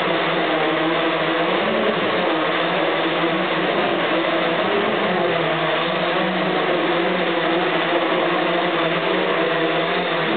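Hexacopter's six electric motors and propellers, mounted at a 40° tilt, whirring steadily in flight, with several close pitches that waver up and down.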